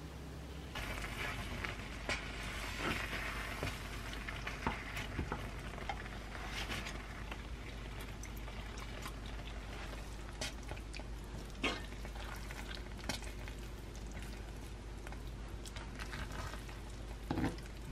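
Shrimp curry sauce of egg and milk sizzling in a frying pan while it is stirred with a wooden spatula, with scattered clicks and knocks of the spatula against the pan.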